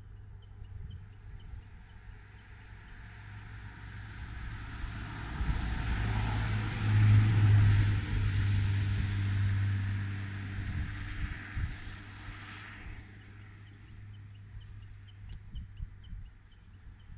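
Cars driving past on a country road: their tyre and engine noise builds over several seconds, is loudest about seven seconds in, and then fades away.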